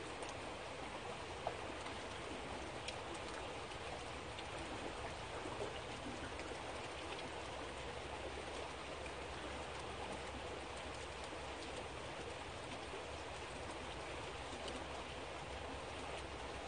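Rain falling steadily, an even patter with scattered small drop ticks.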